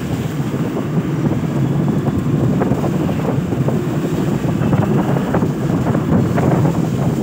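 Steady wind rush over the microphone of a motorcycle riding on a wet road in the rain, with many scattered light ticks through it.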